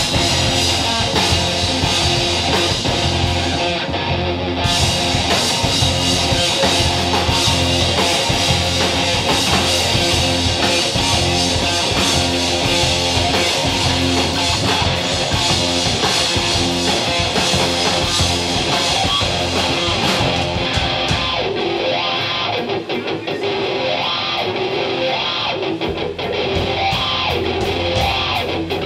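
Live rock band playing without vocals: an electric guitar riff over bass and drum kit. The low end of the bass drops away for a few seconds about three quarters of the way through, then returns.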